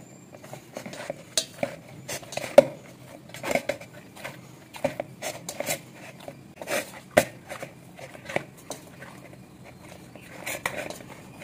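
Hands kneading a soft flour dough in a stainless steel bowl: irregular soft thuds and knocks, a couple a second, as the dough is pressed and turned against the metal, with the bowl knocking now and then, loudest about two and a half seconds in.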